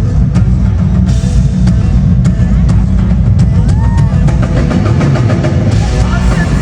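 Live band music played loud over an arena PA, with a steady drum-kit beat and heavy bass, recorded on a phone in the crowd.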